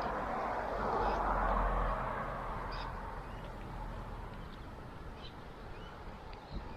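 A passing vehicle's rushing noise, loudest in the first couple of seconds and then fading away, with small birds chirping on and off above it.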